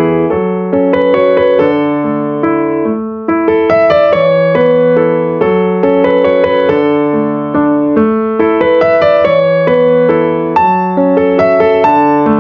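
Background piano music: a continuous run of struck notes and chords.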